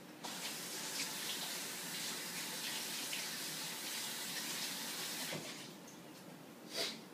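Tap water running steadily into a sink, switched on just after the start and stopping about five and a half seconds in. A short, sharp noise follows near the end.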